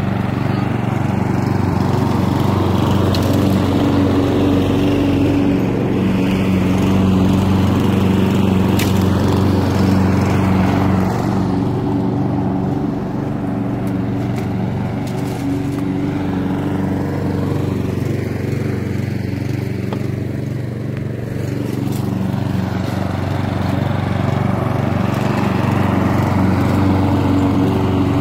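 Lawn mower running steadily as it cuts grass, its level dipping slightly for a few seconds about two-thirds of the way through.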